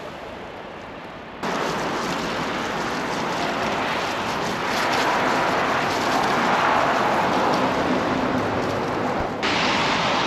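Wind buffeting the camera microphone while cycling: a loud, even rushing noise that starts suddenly about a second and a half in, with a brief dip near the end.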